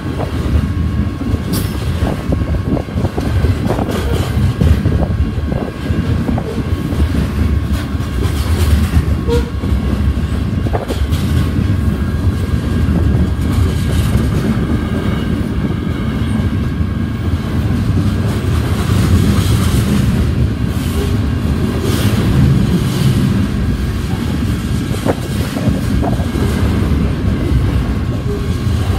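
Freight train's covered hopper cars rolling past close by: a steady, loud rumble of steel wheels on the rails, with scattered clicks and clanks from wheels and couplers.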